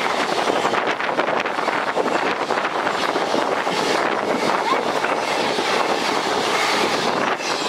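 Indian Railways express passenger coaches passing close by at speed: a loud, steady rush of wheels on rail, thick with rapid clattering and clicking as the wheels run over the rail joints.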